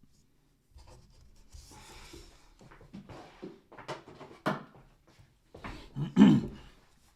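Scratchy rubbing and handling sounds with several sharp clicks, and a louder thump about six seconds in.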